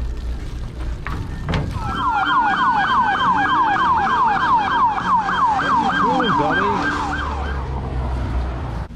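Emergency vehicle siren in yelp mode, its pitch sweeping rapidly up and down about four times a second. It starts about two seconds in and dies away near the end, over a steady low rumble.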